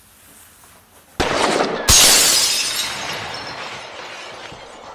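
Intro sound effect of something shattering: a short rush of noise about a second in, then a sharp crash of breaking glass that fades slowly over the next few seconds.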